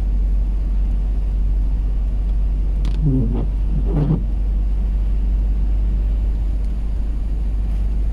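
Steady deep rumble of a car's engine and tyres heard from inside the cabin while driving on a wet road. Two brief pitched sounds rise and fall about three and four seconds in.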